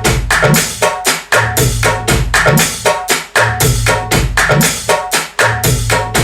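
Music with a busy drum and percussion pattern over a deep bass line, played back through a pair of Hayden 5-inch active studio monitors and picked up by a phone microphone about five feet away.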